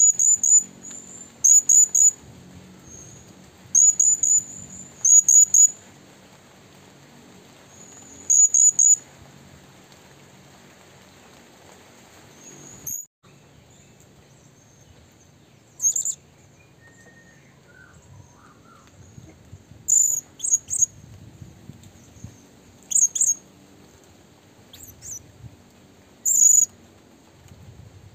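Bird chirping: short, very high-pitched chirps in quick clusters of two to four, repeated every second or two, coming more sparsely after a brief break about halfway through.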